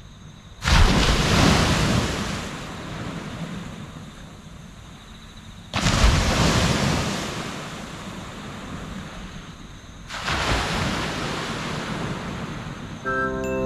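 Ocean waves breaking on the shore three times, each crash coming in suddenly and fading into a long hiss of surf. Chiming mallet-instrument music begins near the end.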